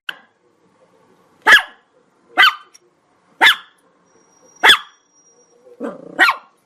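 Chihuahua barking: five sharp, high-pitched yaps about a second apart, the last one preceded by a brief lower sound.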